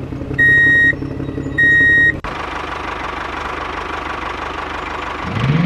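Engine sound of a miniature walking tractor running steadily, with three loud, evenly spaced beeps in the first two seconds. About two seconds in it cuts to a harsher, noisier engine sound, which rises in pitch near the end.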